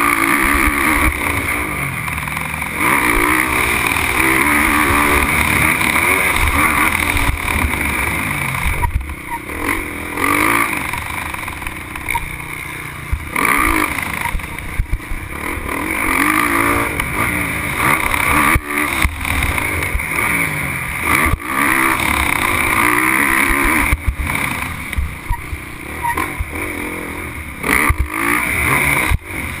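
Motocross dirt bike engine revving up and down through the gears as it is raced around a dirt track, heard from a camera mounted on the bike, with occasional sharp knocks.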